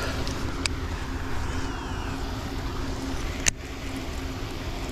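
Wind noise on the microphone over a steady low hum, with a single sharp click about three and a half seconds in.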